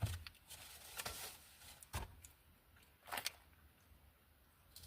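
Close-miked eating sounds: a few short clicks and crunches, roughly one a second, from chewing and handling food with a utensil.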